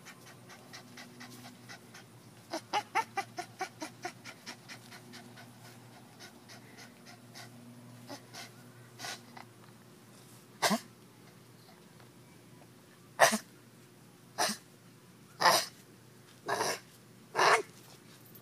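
Pit bull puppy panting in quick runs of breaths. In the second half it gives six short, sharp blasts of breath, a second or two apart.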